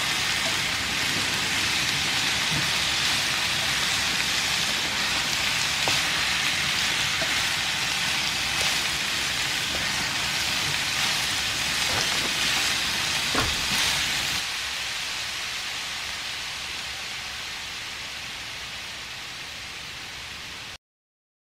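Bracken-fern japchae vegetables stir-frying in oil in a frying pan: a steady sizzle with a few light clicks of chopsticks against the pan. About two-thirds of the way through the sizzle turns quieter and fades away, stopping shortly before the end.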